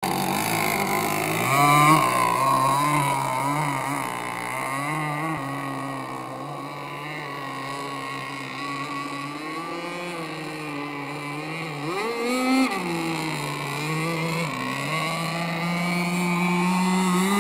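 Aeromarine Conquest Cat RC catamaran's CC Racing 260 two-stroke gas engine with a steel tuned pipe, running at speed across the water. Its high note wavers and dips as the boat turns, rises sharply and falls back around twelve seconds, and climbs again near the end; it is loudest about two seconds in and around twelve seconds.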